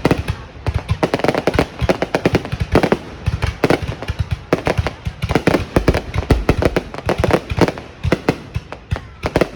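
Fireworks going off close by in a dense, irregular run of bangs and crackles, several a second without a break, strong enough to make the ground shake.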